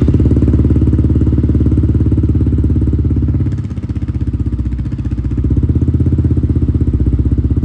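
Single-cylinder motorcycle engine running at idle through an aftermarket Yoshimura exhaust, with an even, steady beat. It eases off a little about halfway through, then picks back up.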